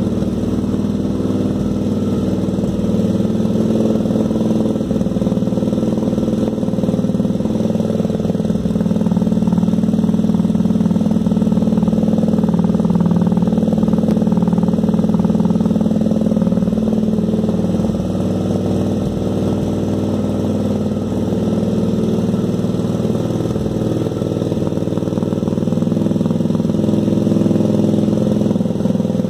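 Mirage 650 (GV650) cruiser's 647 cc V-twin running steadily at idle through a Roncar Scorpion exhaust tip, a chamfered cone with the original removable baffle fitted. The engine note comes up slightly for a stretch in the middle, then settles back.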